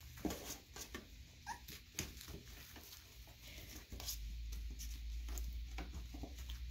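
Three-week-old puppies giving small whimpers and squeaky yips, with scattered clicks and scuffles from their paws on the pads and the cardboard box. A low steady rumble comes in about four seconds in.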